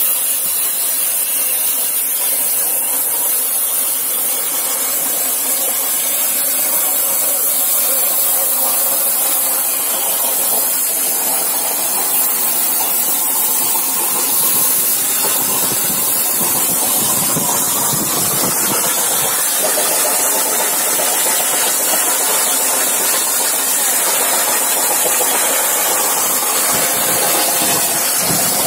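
Plasma torch on a CNC gantry cutting machine cutting steel plate: a loud, steady high-pitched hiss from the arc, with a lower machine rumble growing from about halfway.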